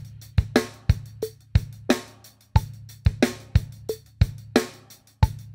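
Acoustic drum kit playing a steady rock groove: bass drum, a snare backbeat with a short ring after each hit, and hi-hat.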